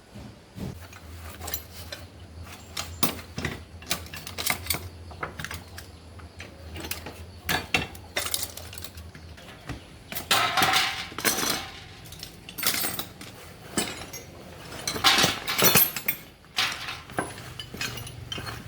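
Metal tools and parts clinking and clattering in irregular knocks, with two longer stretches of rattling and scraping about ten and fifteen seconds in.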